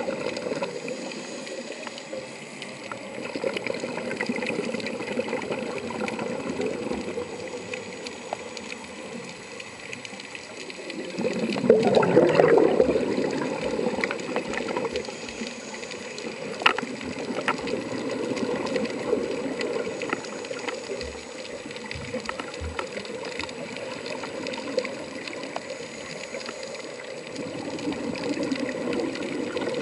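Muffled underwater noise recorded through a submerged camera, with the bubbling of scuba divers' exhaled air. A louder rush comes about twelve seconds in, and a few sharp clicks follow a few seconds later.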